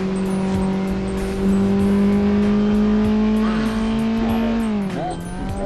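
KTM 690 Duke single-cylinder motorcycle engine pulling at steady high revs, its pitch creeping up. About five seconds in the revs drop sharply and climb back, like a quick gear change.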